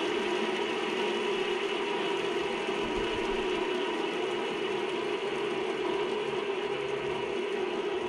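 Two-wing aluminum fidget spinner spinning freely on its ball bearing, a steady whir.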